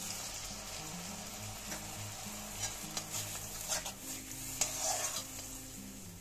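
Water sizzling on hot fried masala in a black iron kadai while a steel spatula stirs and scrapes the pan, with several sharper scrapes through it.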